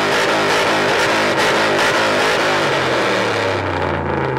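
Ram pickup truck's engine revved hard through its exhaust in quick repeated blips, then dropping back toward idle near the end.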